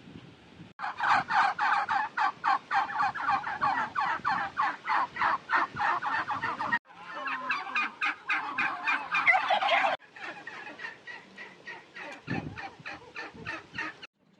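Domestic turkeys gobbling, fast pulsed calls repeating over several seconds. The sound cuts abruptly three times, as separate recordings are joined.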